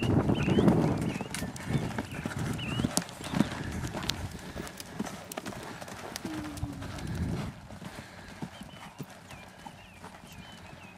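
Horse and pony hooves on a sand arena: heavy thuds as a horse lands over a low stone wall about half a second in, then irregular cantering hoofbeats that grow quieter as the ponies move off.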